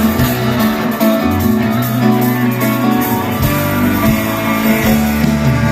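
Live rock band playing an instrumental passage, guitars to the fore over bass, with no singing.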